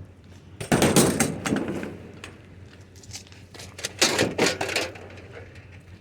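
Scrap items being shifted and set down, with two bouts of clattering knocks and scrapes, the first about a second in and the second near four seconds in.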